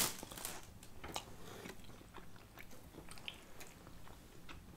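Spicy ramen noodles slurped into the mouth at the very start, followed by soft chewing with scattered small wet clicks.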